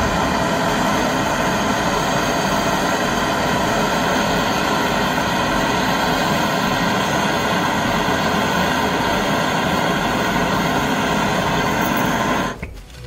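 Gas brazing torch flame hissing steadily while it heats a copper capillary pipe joint on a fridge filter drier for brazing. The hiss stops suddenly near the end as the torch is shut off.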